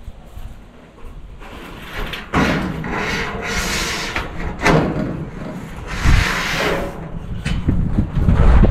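Corrugated metal roofing sheet scraping over wooden rafters and flexing as it is pushed up onto a roof frame, in several louder surges starting about a second and a half in.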